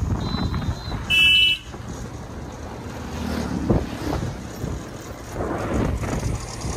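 A vehicle horn beeps once, loud and brief, about a second in, over the steady low rumble of a moving vehicle and road noise.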